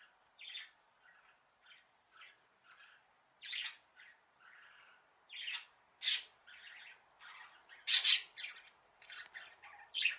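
Budgerigars squawking and chirping: a run of short, separate harsh calls, the loudest about six and eight seconds in.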